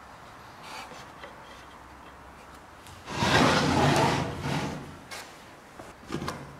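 Wood scraping against wood for about two seconds, the loudest sound by far, then a light knock near the end.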